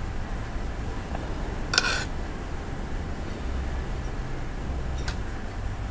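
Metal cutlery clinking against a plate of rice: one sharp clink about two seconds in and a fainter click near the end, over a steady low background rumble.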